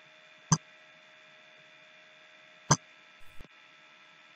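Two sharp computer-mouse clicks about two seconds apart, over a faint steady electrical hum and hiss.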